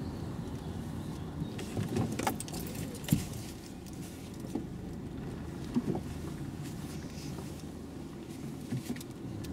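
A Vauxhall hatchback's engine and road noise as a steady low hum inside the cabin while driving, with a few light clicks and jingles from the keys dangling from the ignition.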